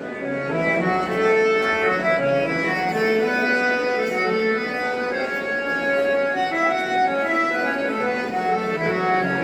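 Instrumental music: a reedy keyboard instrument playing slow, held notes and chords.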